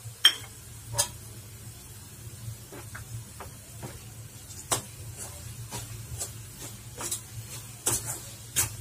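Metal spoon stirring a thick coconut-and-jaggery filling in a steel kadhai, scraping and clinking against the pan at irregular intervals. The loudest clink comes about a quarter-second in. A low steady hum runs underneath.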